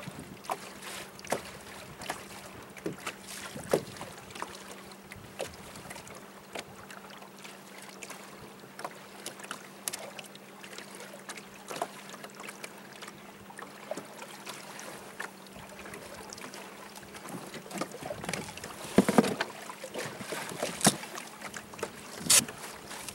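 Lake water lapping and slapping against a small boat's hull in irregular little splashes, over a faint steady hum that stops about two-thirds of the way through. A few louder slaps come near the end.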